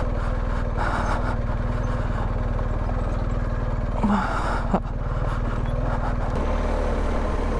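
BMW R1250GS boxer-twin engine running steadily at low revs under way. A short rush of noise comes about four seconds in, and the engine note shifts slightly a little past six seconds.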